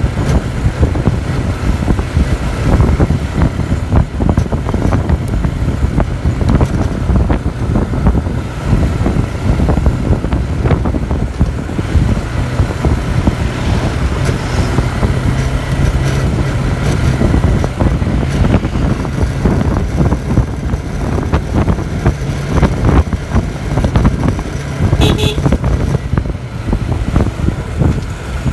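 Road traffic in a jam: motor vehicle engines running with a steady low rumble. A brief high-pitched beep sounds about 25 seconds in.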